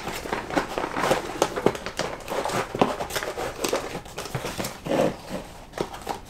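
Cardboard board-game box and paper rulebook being handled and the lid closed: rustling with irregular light knocks and clicks.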